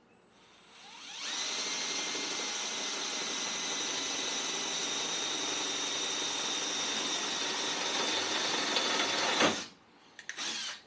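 Power drill with a small bit boring a pilot hole through the Jeep's sheet-metal body. The motor spins up over the first second or so, runs at a steady whine for about eight seconds, then cuts off and winds down, and a brief second burst follows near the end.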